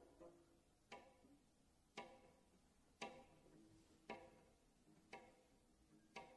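Faint cello pizzicato: single plucked notes about once a second at an even pace, each ringing briefly and fading before the next.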